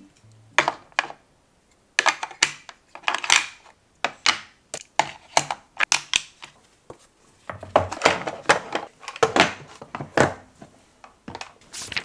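Plastic makeup compacts and cosmetic cases clicking and clattering, set down one after another into a tray, in a run of irregular sharp taps with short pauses.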